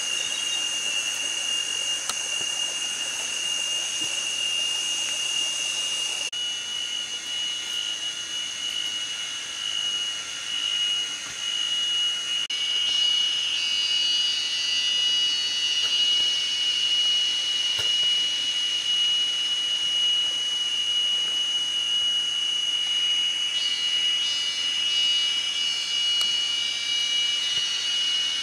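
Forest insects droning: one steady high whine with a fainter shrill hiss above it, and a second pulsing chorus joining in twice.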